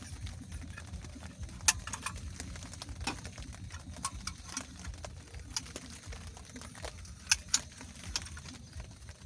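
Scattered raindrops pattering irregularly over a steady low rumble of rain, with a few sharper, louder drops.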